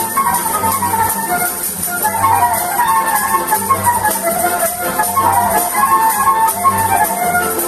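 Folk ensemble playing a polka live: a flute carries the melody over accordion, violin, acoustic guitar and double bass, with a steady pulsing bass beat.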